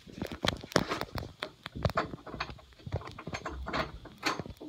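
Irregular knocks and thumps, about three or four a second: footsteps on a hard floor and the handheld phone being jostled.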